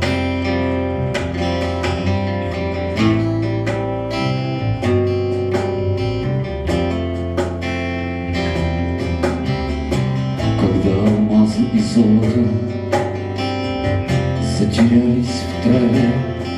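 Rock band playing a song's instrumental intro live: strummed acoustic guitar over a steady bass line and regular drum hits, with a wavering lead melody coming in about ten seconds in.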